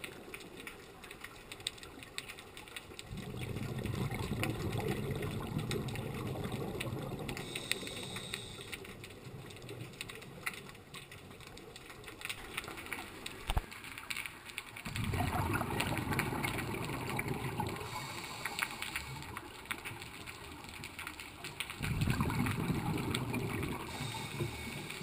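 Muffled underwater noise heard through a camera housing, with three long swells of rushing, gurgling water noise lasting a few seconds each, and one sharp click near the middle.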